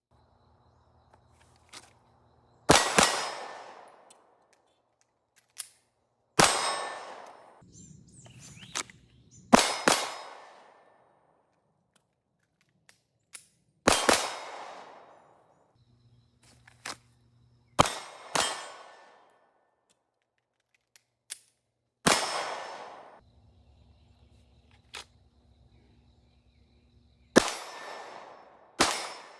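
9mm gunshots fired one at a time at an unhurried pace, about ten in all, a few seconds apart and sometimes two in quick succession, each followed by a short echoing decay.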